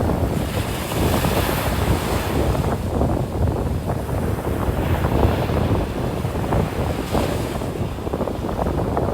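Ocean surf breaking and washing up the beach in repeated swells, with wind buffeting the microphone as a low rumble.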